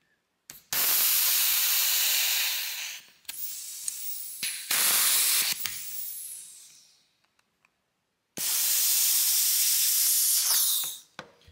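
Compressed air hissing out of a safety quick-disconnect air-hose coupler as it is worked on and off its plug. There is a long loud hiss starting under a second in, a short burst around five seconds in, and another long hiss from about eight seconds, with sharp clicks of the coupler between.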